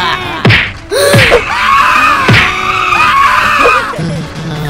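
Cartoon-style comedy sound effects: exaggerated voices screaming and wailing in rising and falling arcs, with three quick downward swoops, over background music.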